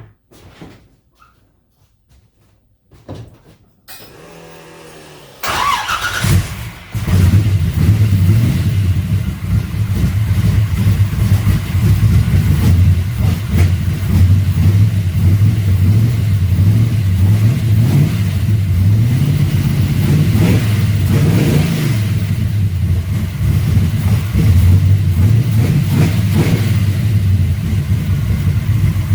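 1955 Chevrolet's carbureted engine being started cold: the starter cranks briefly, the engine catches about six seconds in and revs up, then settles into a steady run, with a brief rise in revs around twenty seconds in.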